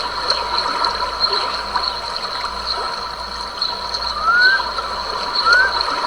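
Stream water trickling and gurgling over a constant background of steady high-pitched tones. From about four seconds in, an animal gives short rising whistled calls, about one a second.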